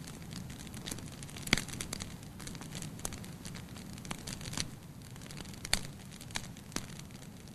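Wood fire burning in a fireplace: a low steady rush of flames with sharp crackles and pops from the burning logs, about six in a few seconds.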